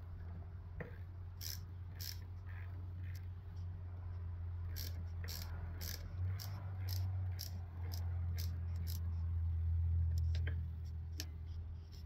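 Small clicks, taps and rattles of battery cable terminals and hardware being handled and refitted on a truck battery, scattered irregularly, over a steady low hum.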